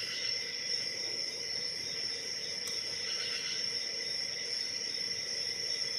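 A steady high-pitched background whine, with one faint tick about halfway through as a hook pick works the pins of a padlock's five-pin brass cylinder.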